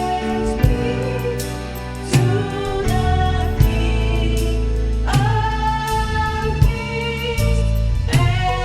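Live gospel worship music: a choir of singers holding drawn-out notes over a band with drums and bass.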